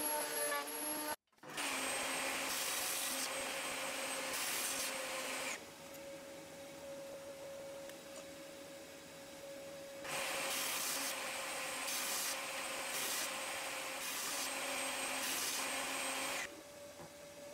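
A table saw with its motor running and humming steadily, the blade cutting through wood twice, each cut several seconds long and much louder and hissier than the hum between them. It opens with a thickness planer running for about a second before the sound cuts to the saw.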